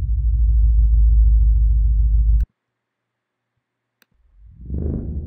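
Recorded subwoofer tones: a deep, pulsing low warble that cuts off suddenly with a mouse click about halfway through. After a short silence, a low swell rises and fades near the end.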